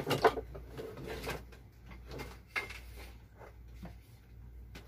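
Knocks and clicks of hands working at a wall-mounted TV and its cables, with a sharp knock just after the start and a few lighter ones after.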